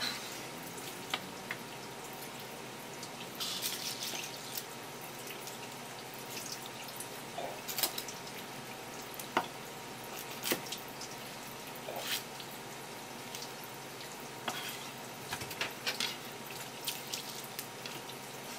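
Wet kitchen sounds of fish being prepared by hand: scattered sharp taps and clicks with dripping water, and a brief splash or rush of water about three and a half seconds in, over a faint steady hum.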